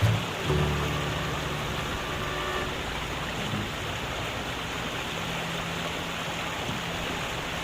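Excavator's diesel engine running steadily under a continuous broad hiss, its low hum clearest in the first couple of seconds.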